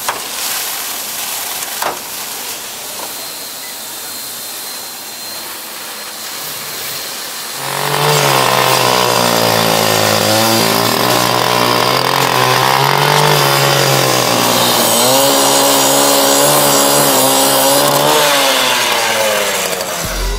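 Fire hose water jet spraying and hissing against a burning van. About eight seconds in, a loud engine takes over with a steady buzzing drone whose pitch wavers slightly, cutting off just before the end.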